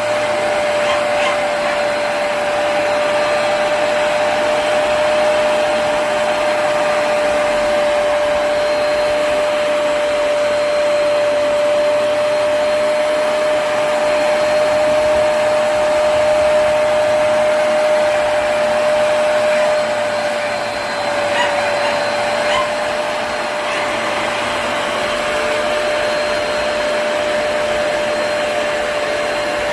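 Hoover PowerDash Pet+ compact carpet cleaner running: a steady motor whine over a rushing hiss of suction. About twenty seconds in the pitch sags slightly and the level dips briefly, then it recovers.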